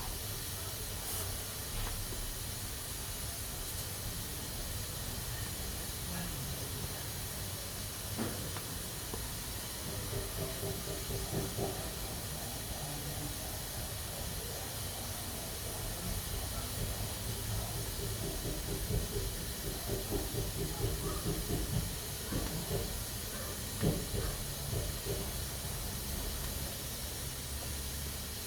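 Pressure cooker hissing steadily as steam escapes through its valve, with stretches of faster rattling sputter around the middle and again later.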